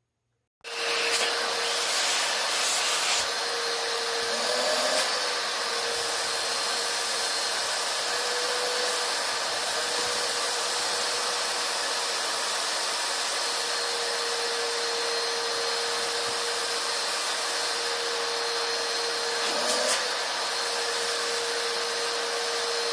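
Vacuum cleaner switched on under a second in, its motor starting abruptly and then running steadily with a constant whine, as it cleans up a large mess. The pitch briefly wavers twice, about five seconds in and again near the end.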